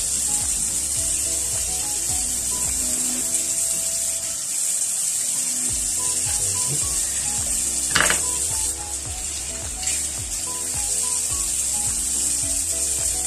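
Kitchen tap running into a sink with a steady hiss, and a knife cutting spring onions on a wooden chopping board, with a sharp knock about eight seconds in. Soft background music plays under it.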